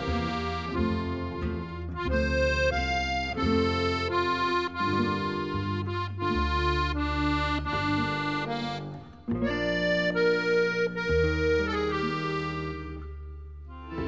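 Instrumental background music: held chords with a melody over them. It dips briefly about nine seconds in and fades near the end.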